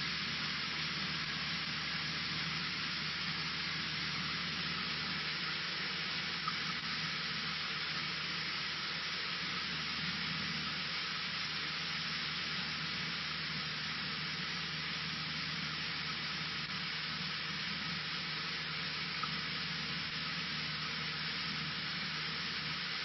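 Steady cabin noise of a Cessna 152: its four-cylinder Lycoming engine and propeller drone low under a constant hiss, with two faint clicks.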